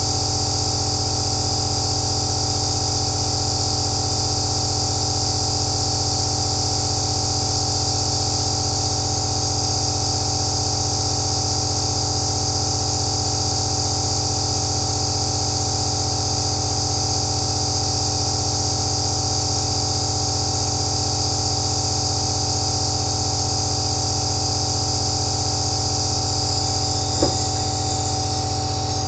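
Home nebulizer ('aerosol' machine) running steadily: a constant mechanical hum with a band of hiss on top. A single short click comes near the end.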